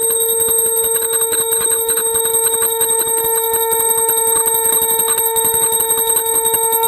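Shankh (conch shell) blown in one long, steady note, with a hand bell ringing rapidly alongside it.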